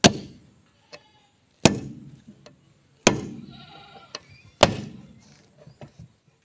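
Sledgehammer striking a steel tool held in the front wheel hub of a John Deere tractor: four heavy metal-on-metal blows about a second and a half apart, each ringing briefly.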